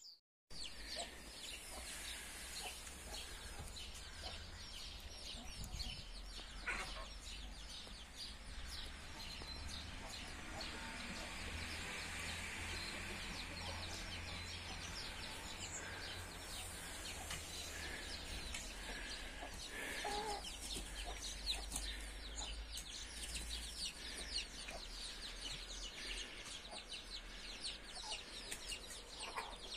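Backyard hens clucking now and then, faint, over a steady low rumble.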